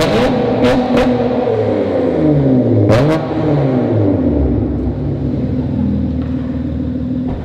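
2008 Acura TL Type S's 3.5-litre V6 through a straight-piped exhaust, blipped twice so the revs climb and fall back, with a few sharp cracks near the peaks. It then settles into a steady, loud idle about four and a half seconds in.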